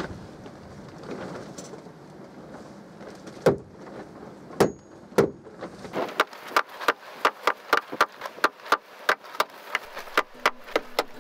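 Steel claw hammer tapping wooden plugs into the screw holes of teak deck planks. A few single blows come first, then from about six seconds in a quick, even run of light taps, about three a second.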